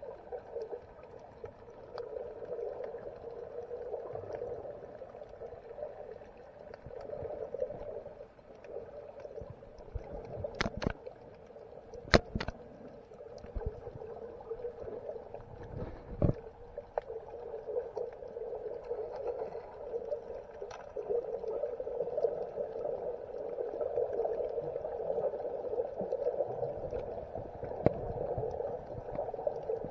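Muffled underwater noise picked up by a submerged action camera: a steady low gurgling rush that swells and fades, broken by a few sharp knocks, two close together around eleven and twelve seconds in, another around sixteen seconds and one near the end.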